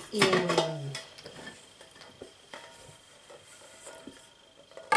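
A brief vocal sound at the start, then light clinks and knocks of small washed kitchen pots and dishes being dried with a towel and set down, with a sharper clack near the end.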